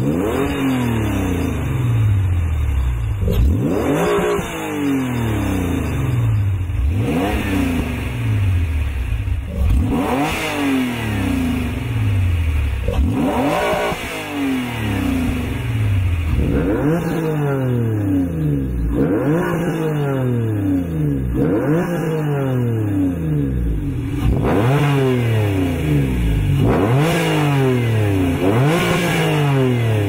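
A sports car engine is revved while the car stands still, in a series of quick throttle blips about every two to three seconds. Each blip climbs sharply in pitch and then falls back toward idle.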